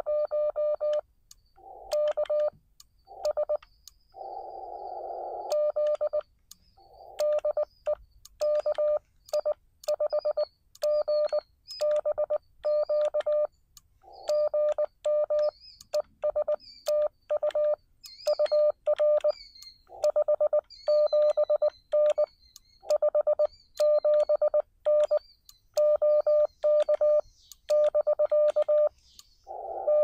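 Morse code (CW) from a Xiegu X6100 transceiver: a single steady beep of about 600 Hz keyed on and off in runs of dots and dashes. Short stretches of receiver hiss come through the narrow CW filter about four seconds in and at the very end.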